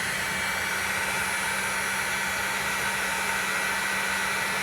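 Heat gun running on its high setting, blowing a steady rush of hot air with a low motor hum, shrinking heat-shrink crimp connectors on wiring.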